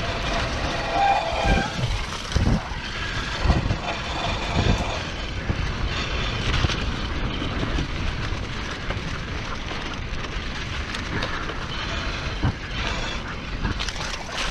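Mountain bike riding over a trail: a steady rumble and rattle of the tyres and frame, with a few jolts from bumps in the first five seconds.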